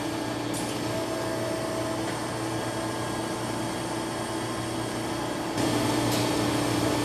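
Steady hum of running machinery, a low drone with a couple of held tones over an even noise, which grows a little louder about five and a half seconds in.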